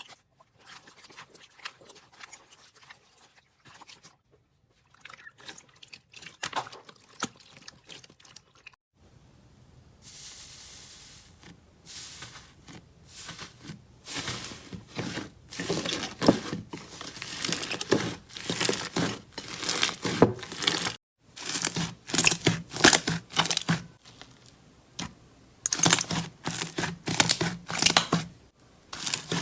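Slime being squeezed, poked and stretched by hand, giving dense crackling and popping in several short clips with brief cuts between them; the crackling grows louder in the second half.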